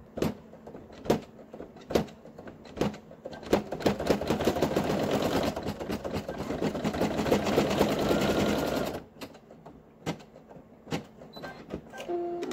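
Brother PE800 embroidery machine stitching. A few separate stitch clicks come first, then several seconds of fast continuous stitching that stops abruptly, followed by scattered clicks.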